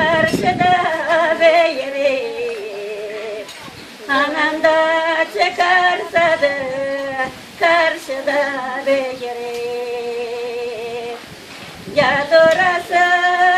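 Unaccompanied female singing of a Gagauz song: long held notes that waver, in phrases that each fall in pitch, with brief breaths between phrases.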